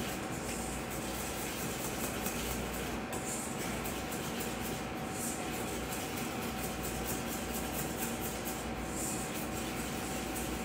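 Spatula scraping and stirring a thick butter, sugar and egg paste around a stainless steel bowl by hand, in repeated soft strokes, as the egg is worked in until it emulsifies. A steady background hum runs under it.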